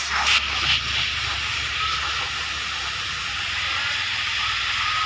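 Compressed-air blow gun hissing as it blows into the oil hole of a motorcycle crankshaft's crank pin, with a few short bursts in the first second and then a steady hiss. The oil passage is blocked, and the air does not get through.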